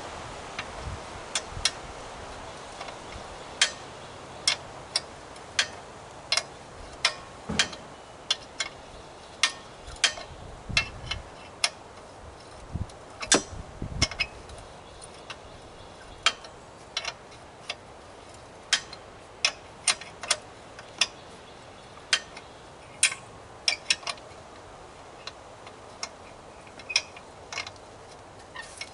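Irregular sharp clicks and taps, about one or two a second, from hand tools working on the scrapped air compressor's parts.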